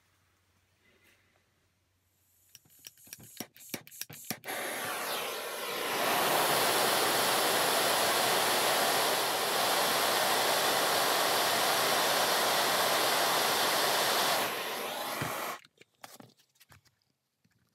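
Handheld gas cartridge torch burning with a steady hiss, heating a bent hole-punch piston red-hot to straighten it. A run of clicks comes first. The hiss then starts, grows louder about a second and a half later, holds for about ten seconds and cuts off abruptly.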